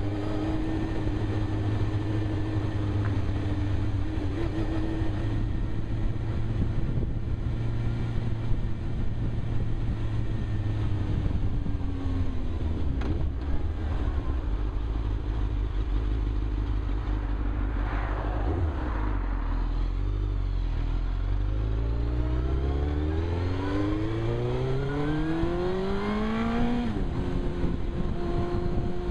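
Suzuki GSX-R 1000 inline-four motorcycle engine, heard from a helmet-mounted camera. It runs steadily, then falls away to a low note around the middle as the bike slows. It then revs up in one long rising climb and drops suddenly near the end at a gear change.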